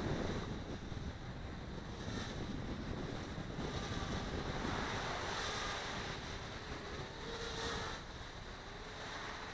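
Gusty wind blowing across the microphone, a rushing noise that swells and eases. In the second half a faint whine rises and falls in pitch: the small quadcopter's motors changing speed as it fights the wind.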